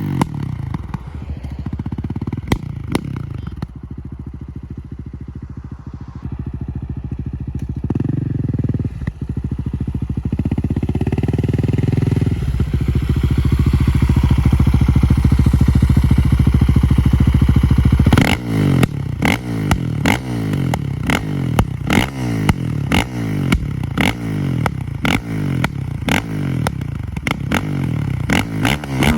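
2019 KTM 690 SMC R's single-cylinder engine, running straight through an FMF 4.1 exhaust and Tekmo header with no catalytic converter or dB-killer. It revs up and is held high for several seconds. At the sudden let-off about 18 s in, the pops-and-bangs tune sets off a long run of sharp exhaust cracks and pops on the overrun.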